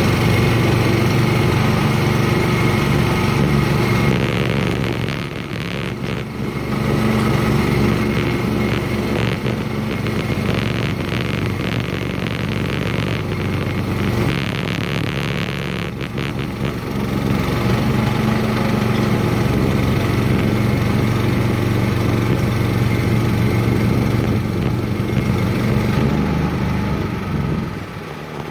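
Petrol engine of a Woodland Mills HM126 portable bandsaw mill running steadily while the band blade saws through a poplar log. It dips briefly about five seconds in and again around the middle, then quietens near the end.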